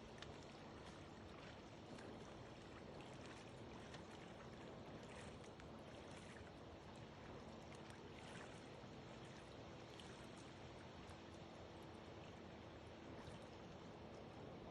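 Faint water lapping and splashing around a kayak, with scattered small splashes over a steady low hum.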